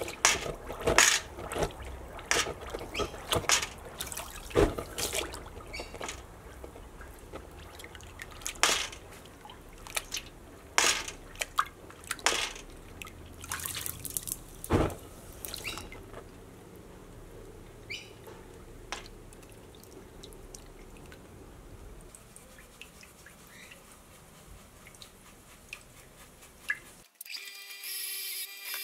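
Red-hot 4140 steel being oil-quenched in a bucket of vegetable oil to harden it: the oil sizzles and crackles with many sharp, irregular pops, which die down after about fifteen seconds to a quieter sizzle. Near the end it cuts abruptly to a steady electric motor hum.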